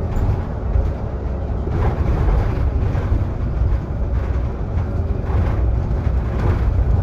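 Interior running sound of a Solaris Urbino 18 IV articulated bus on the move: a steady low rumble of drivetrain and road, with a few short creaks about two, five and six seconds in, from an articulation joint that squeaks.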